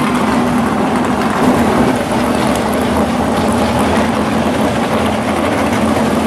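Drag-race cars' engines running at a steady idle as they roll slowly through the staging lanes, with no sharp revving.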